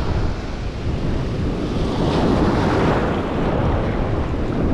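Small waves breaking and foamy surf washing across the sand, with wind rumbling on the microphone.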